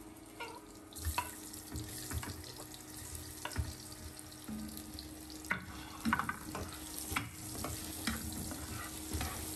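Sausages sizzling as they go into hot oil in a nonstick frying pan, with a steady frying hiss and scattered knocks and scrapes of a slotted spatula against the pan and plate.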